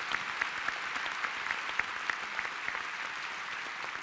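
Large audience applauding, fading slightly toward the end.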